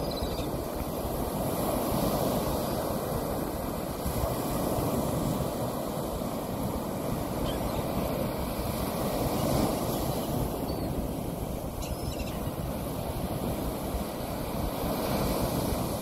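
Surf breaking and washing up on a sandy beach, a steady rush that slowly swells and eases, with wind rumbling on the microphone.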